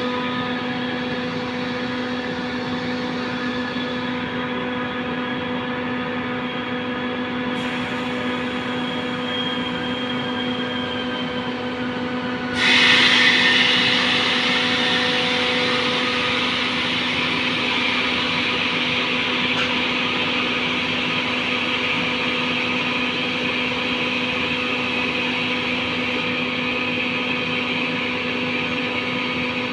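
Compressor machine running with a steady hum. About twelve seconds in, a louder hiss starts suddenly and carries on over the hum.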